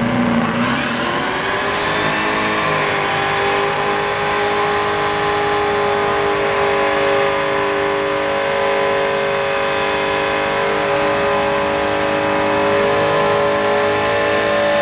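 The supercharged 32-valve DOHC V8 of a 2003 SVT Mustang Cobra, held at high, steady revs during a second-gear burnout on the line lock, its rear tyres spinning on the pavement. The engine note climbs slightly in the first second, then holds nearly level.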